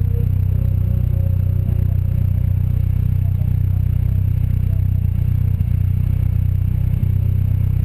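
Engine of a Seven-style open sports car idling steadily, heard close to its side exhaust: an even low drone that neither rises nor falls.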